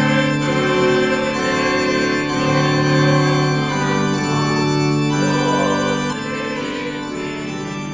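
Music of long, held chords, with no speech; it gets quieter about six seconds in.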